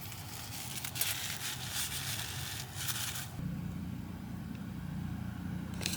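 Bacon grease crackling in a frying pan, with a few louder spells of sizzling; about three and a half seconds in, a steady low hum comes up and the sizzle fades.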